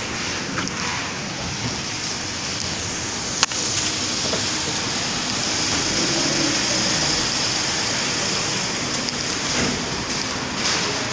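Steady hiss and rustling from a camera carried hidden inside a book, rubbing as it moves. There is one sharp click about three and a half seconds in.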